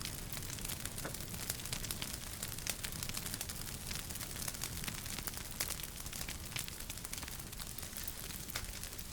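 Wood fire crackling in a fireplace: a constant, irregular stream of small sharp pops and snaps over a low rumble.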